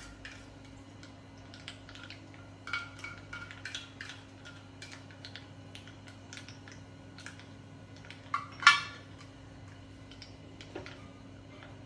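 Metal spoon scraping and tapping inside a steel mixer-grinder jar, emptying out ground spinach and green-chilli paste, in a run of small clicks and scrapes. About three-quarters of the way through comes one loud ringing metal clink.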